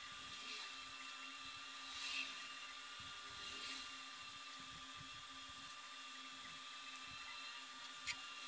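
Quiet room tone: a faint, steady electrical hum and hiss, with a sharp click near the end.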